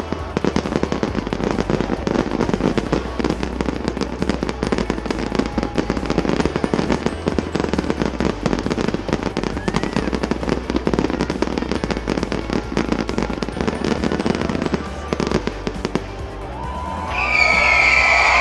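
Fireworks display: a dense, rapid crackling and popping of many bursts together. About a second before the end, loud music comes in.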